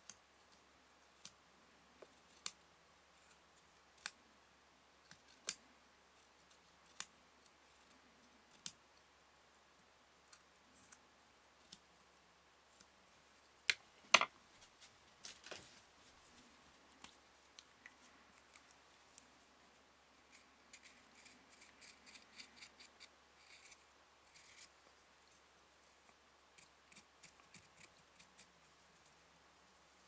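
Small scissors snipping notches into a thin chipboard strip: crisp single snips about every second or so, then one much louder click about halfway through. After it, softer rustling and light ticks of the strip being handled.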